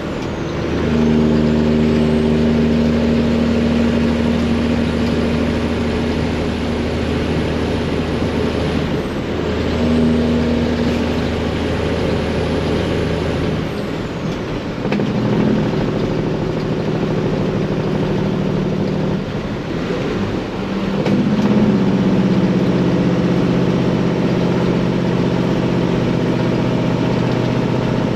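Freightliner semi-truck's Detroit diesel engine pulling under load with loud exhaust pipes, its note dipping and changing pitch several times as the driver shifts gears. A faint high turbo whistle falls and rises with each shift.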